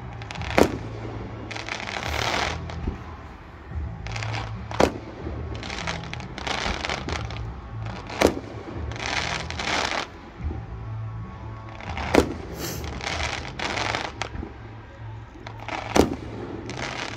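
Aerial fireworks shells bursting: five sharp bangs about four seconds apart, each followed by about a second of crackling as the stars burn out.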